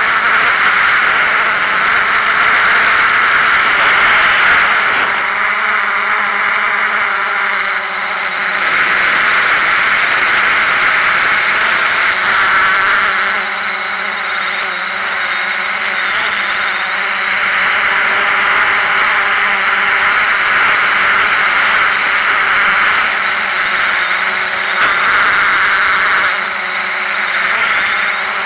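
Small multirotor drone's motors and propellers whining steadily, as picked up by its own onboard camera, easing off and picking up again a few times as the throttle changes.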